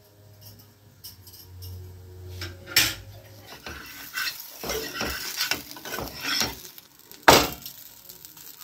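Steel spatula scraping and knocking against a metal kadai as a paratha is worked loose and flipped, with sharp metal clanks about three seconds in and, loudest, near the end.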